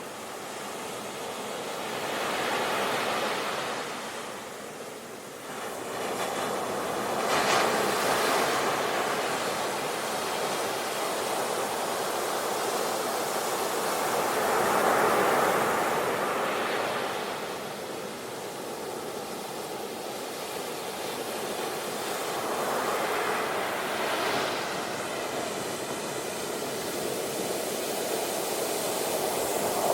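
Sea waves breaking and washing up on a shore: surf that rises and falls in swells every several seconds.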